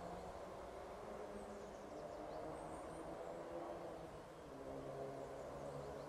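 Faint outdoor background: a steady low hum, with a few faint high chirps about two to three seconds in.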